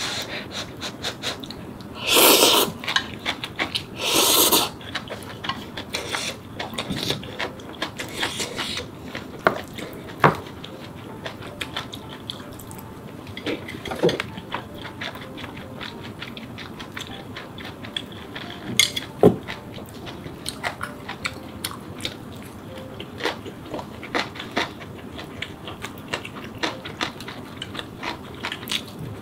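A person slurping ramen noodles loudly twice in the first few seconds, then chewing with wet mouth sounds and occasional sharper clicks.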